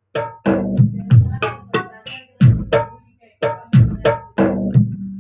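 Roland SPD-20 Pro electronic percussion pad being played: a run of about fourteen drum hits, roughly three a second, each with a deep ringing decay. The output is loud, the pad's low-volume problem fixed.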